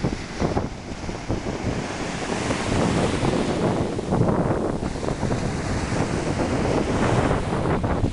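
Ocean surf washing in over the sand at the water's edge, with wind buffeting the microphone; it grows a little louder after about two seconds.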